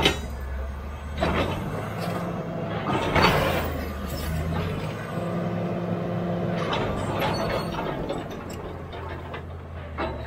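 Caterpillar D7G crawler bulldozer's six-cylinder diesel engine running under load as the dozer shoves its blade against a large boulder, the engine note shifting as it works. A few scraping knocks of steel on rock and dirt break through, about a second in, at three seconds and near seven seconds.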